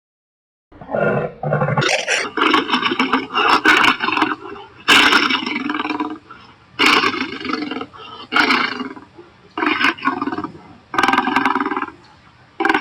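Cartoon lion roar sound effects: a string of separate roars and growls, about seven or eight, starting about a second in, each lasting from half a second to about two seconds with short pauses between.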